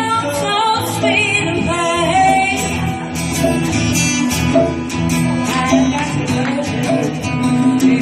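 A live band playing a song: a singer with vibrato over guitar and instrumental backing, with light hand percussion tapping through the second half.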